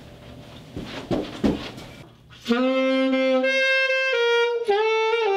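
A few thumps over room noise, then about halfway in a saxophone starts playing a slow melody of held notes.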